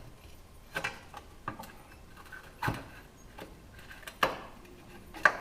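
A metal putty knife clicking and scraping against windshield trim and its retaining clips while it is pried at, about five sharp clicks with the loudest two near the end.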